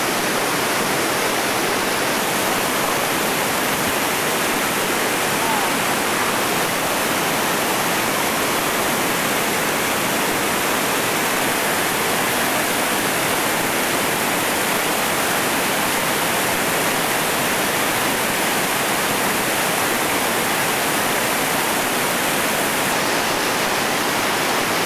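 Whitewater river rapid rushing, a steady, unbroken hiss of churning water pouring over rocks.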